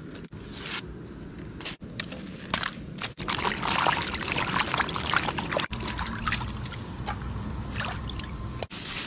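Water being poured and splashing, with trickling between pours, loudest from about three to six seconds in and breaking off abruptly a few times.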